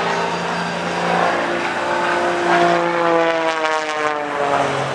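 Single-engine propeller aerobatic plane's engine running. About halfway through, a fresh surge of engine sound comes in, and its pitch slowly falls toward the end.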